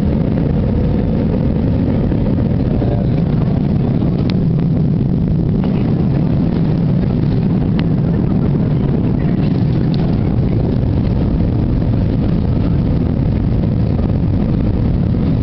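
Airbus A321-200 jet engines and airflow heard inside the cabin during the climb after takeoff: a steady, even low roar.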